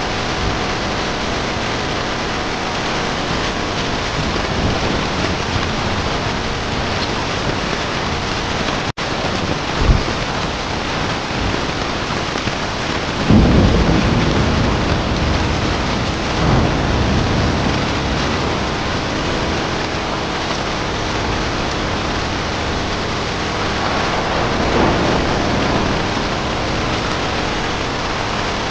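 Heavy rain falling steadily, with several deep rolls of thunder; the loudest comes about halfway through. There is a split-second dropout about a third of the way in.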